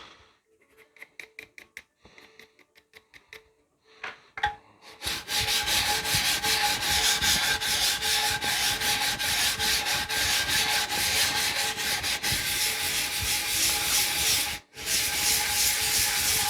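Knife handle scales being flattened on the 60-grit belt of a 2x72 belt grinder, with the motor's steady hum underneath. For the first few seconds there is only light, quick scuffing. About five seconds in, a part is pressed flat to the abrasive and a loud, steady sanding rasp begins, ticking evenly with the belt. It drops out for a moment near the end, then starts again.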